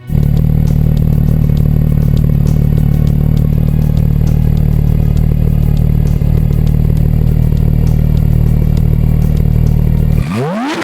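Porsche 991 GT3's naturally aspirated 3.8-litre flat-six idling, loud and steady, then revving sharply upward near the end.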